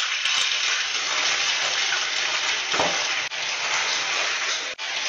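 Oil sizzling steadily in a frying pan on a stovetop.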